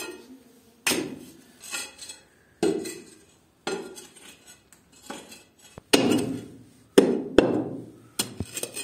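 A metal bar chipping at a crumbling masonry wall: about ten sharp knocks, irregularly spaced at roughly one a second.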